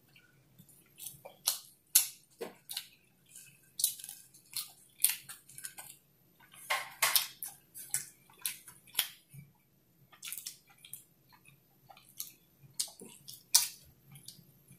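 Close-miked chewing of a mouthful of burger: irregular smacks and clicks of the lips and mouth, several a second, pausing now and then.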